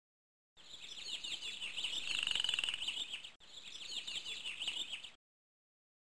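Recorded rainforest sound effect: a dense chorus of quick, high chirping calls, like many small birds. It starts about half a second in, cuts out for an instant past the middle, and stops abruptly near the end, with dead silence on either side.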